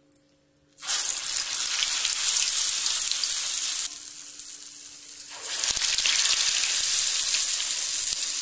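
Hot oil sizzling loudly as a thick vada (garelu) of batter is dropped in for deep-frying about a second in; the sizzle eases off, then flares up again as a second vada goes into the oil about five and a half seconds in.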